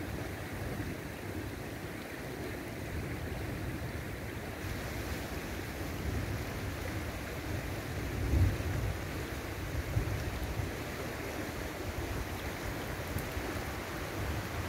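Shallow river flowing steadily over a gravel bed, with wind buffeting the microphone in low gusts. A brief, louder low rumble comes about eight seconds in.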